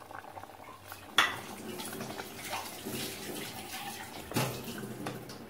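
Tamarind water being poured from a plastic container into a pot of simmering curry, with two sharp knocks against the aluminium pot, about a second in and again near the end.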